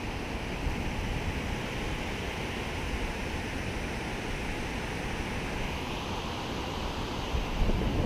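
Steady rushing of river water pouring over a low dam's spillway, with wind rumbling on the microphone.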